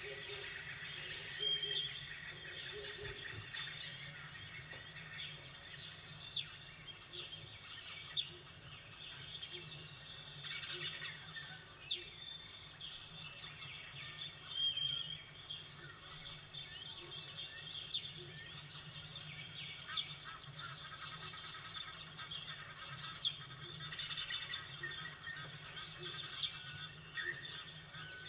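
A chorus of small songbirds chirping and trilling, many short calls overlapping, over a steady low background noise.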